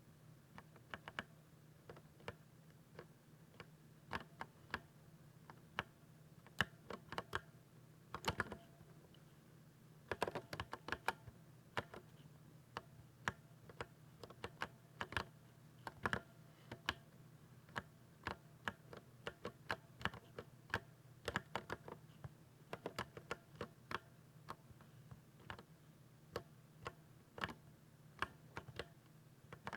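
Typing on a 60% keyboard: irregular sharp key clicks, sparse at first and then faster and denser from about ten seconds in, over a faint low hum.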